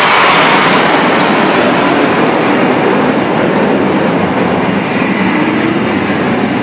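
Jet noise from a formation of Hawk Mk 132 jet trainers flying past, a steady roar that slowly fades as they move away.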